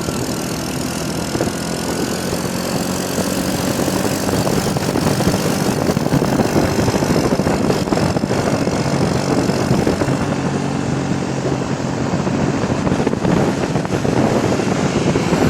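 Wind rushing and buffeting over the microphone from a moving car, over the steady road and engine noise of driving.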